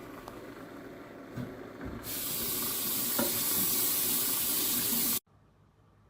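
Keurig K-Cafe coffee maker brewing: water spraying through with a steady hiss that grows much louder about two seconds in, then stops abruptly.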